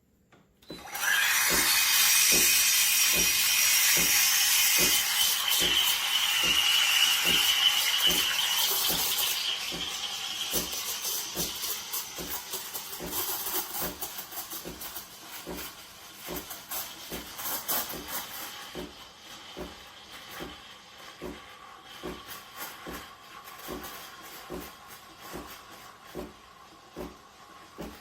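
Espresso machine steam wand hissing as it froths milk in a pitcher, starting about a second in, loud at first and fading down after about ten seconds, with a steady pulsing rhythm from the machine underneath.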